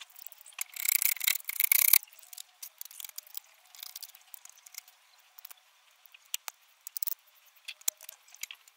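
Masking tape being pulled off its roll in one rasping strip about a second in, followed by crinkling and small clicks as the tape is pressed and smoothed onto a small steel piece.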